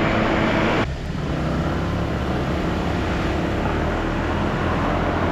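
Steady riding noise from a Honda PCX 125 scooter on the move: wind and road rush with a low engine hum. The sound changes abruptly about a second in.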